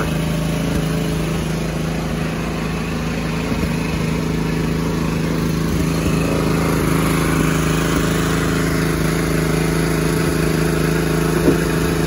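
Gasoline engine of a portable circular sawmill running steadily at a constant speed, a continuous even hum.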